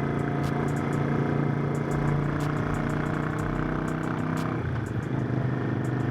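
Motorcycle engine running steadily while riding; its note changes about four and a half seconds in, as the throttle or gear changes.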